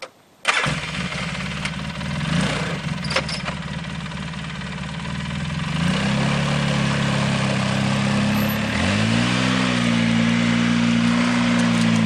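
A four-wheeler ATV engine starts suddenly about half a second in and runs. Its pitch steps up around the middle and again soon after, then holds steady as the ATV pulls the choker cable and rolls the redwood log along the rails.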